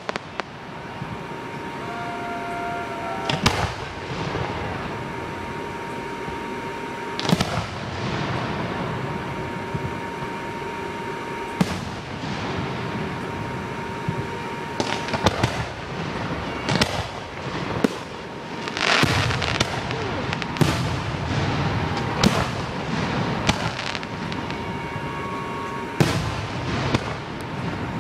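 Aerial firework shells bursting: sharp bangs every few seconds, bunching closer together past the middle, over a steady din from the display.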